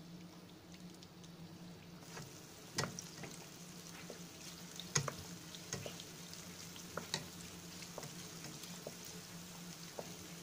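Oil sizzling steadily around a Mughlai paratha deep-frying in a pan, with scattered sharp pops and crackles, the strongest about three and five seconds in.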